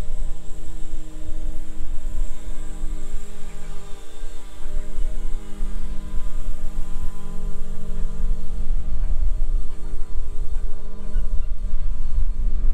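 Riding lawn mower engine running steadily at a distance, a constant drone with a slight change in pitch about four seconds in. Wind buffets the microphone throughout.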